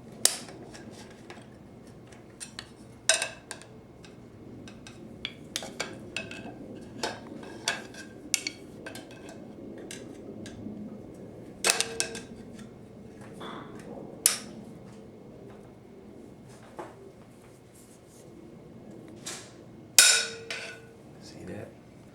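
Steel parts of a 4L60E transmission input drum and hand tools clinking and knocking against each other at irregular intervals. Two louder metal strikes, about halfway through and near the end, ring briefly.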